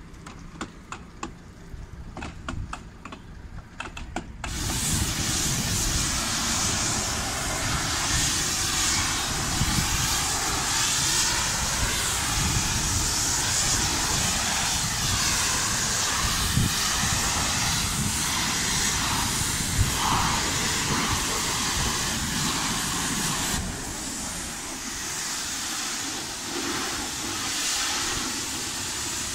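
A few light knocks and scrapes, then about four seconds in a high-pressure washer lance starts spraying: a loud, steady hiss of water jetting against the side of a motorhome.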